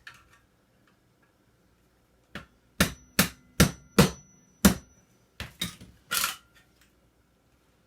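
Hammer striking a microwave oven magnetron's metal housing: about nine sharp knocks, two or three a second, with a faint metallic ringing after some of them.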